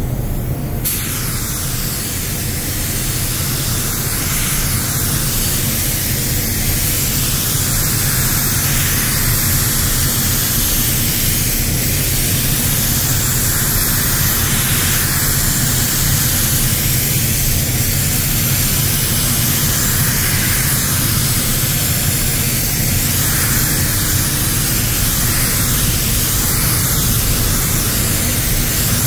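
Compressed-air spray gun, most likely the Walcom Slim X Light with a 1.3 mm tip, spraying a second coat of clear varnish. It comes on with a sharp hiss about a second in and then runs as a loud, steady air hiss. The hiss swells and fades slightly as the gun makes its passes.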